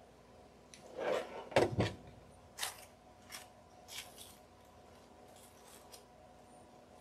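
Paper coffee-filter ruffles and lace rustling and crackling as they are handled and pressed together. A low knock about one and a half seconds in, the loudest moment, as the hot glue gun is set down on the table, followed by a few short crackles.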